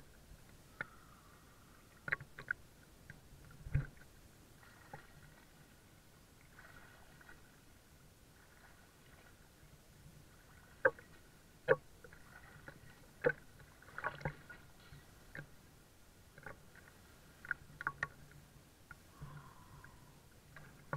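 Small sea waves lapping and splashing right at the microphone held at the water's surface, with scattered sharp splashes and clicks over a quiet background.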